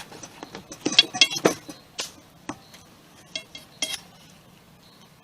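Metal cookware and a utensil clinking and tapping: a string of short sharp knocks, busiest about a second in and again near four seconds.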